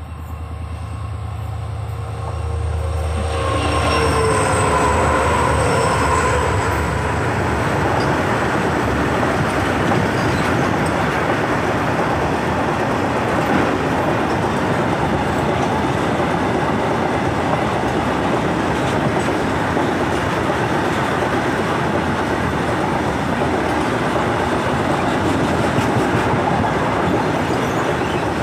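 Twin EMD WDG4 diesel locomotives, each with a two-stroke V16, rumble up and pass close by, their tones falling in pitch about four seconds in. After them a long rake of BTPN tank wagons rolls past with steady wheel-on-rail noise and clickety-clack.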